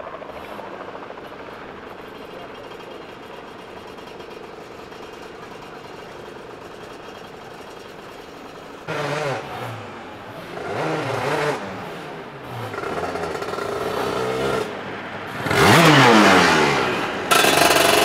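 A steady background engine drone, then a superkart's two-stroke engine revving in short blips as it pulls away at low speed, building to a loud rising rev near the end.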